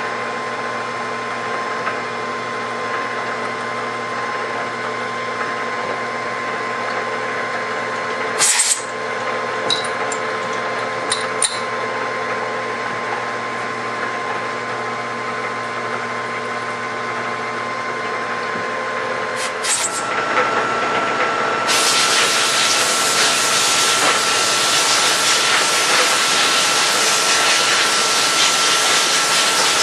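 Vertical milling machine's spindle running steadily with a small drill in the chuck, drilling blind holes in aluminum soft jaws, with a few sharp clicks partway through as the pieces are swapped. Past the two-thirds mark the machine's tone shifts and a loud steady hiss starts and keeps on.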